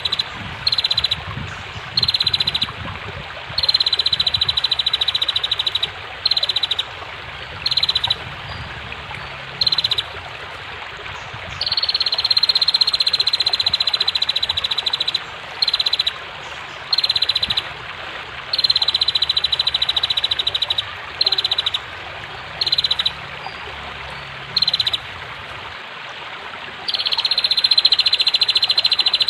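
Female prinia (prenjak) giving high, rapid buzzing rattle calls in repeated bursts, some brief and some lasting a few seconds. Underneath is the steady rush of flowing water.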